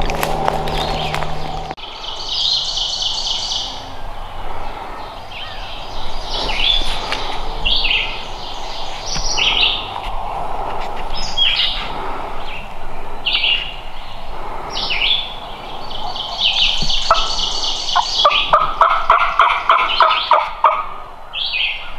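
Turkey calls: a run of about ten evenly spaced yelp-like notes near the end is the loudest part, over many short high songbird chirps. A few knocks come in the first two seconds.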